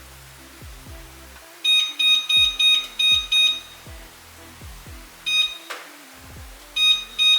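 Rapid electronic alarm beeping, about four shrill beeps a second in trains that stop and start, over quieter background music.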